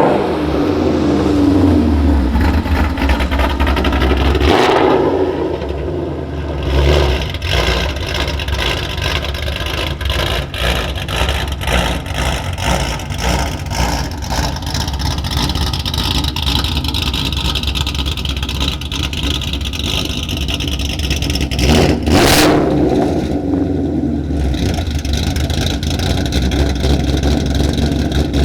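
Ford Mustang 5.0 V8 with American Racing headers and a ghost cam tune, run loud by the camera as it is driven, surging and revving several times, with one sharp rev about three quarters of the way through.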